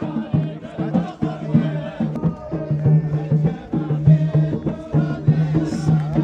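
Traditional Middle Eastern folk music: a group of male voices chanting a sustained line over regular drum beats.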